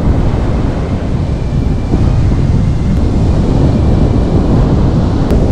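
Steady wind noise on the microphone over sea waves breaking on the beach.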